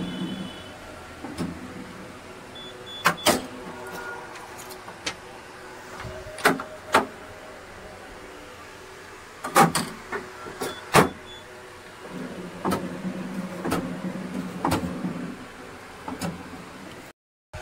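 Ricoh DX2430 digital duplicator running a proof print: a short beep as Proof is pressed, a steady motor hum, and a series of sharp clacks from the paper feed and drum mechanism. The hum returns with more clacks near the end. It is a test print to check that paper now feeds properly with the new friction pad.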